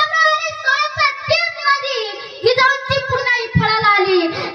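A child's high-pitched voice declaiming a speech in a chanting, sing-song delivery, the pitch sweeping up and down.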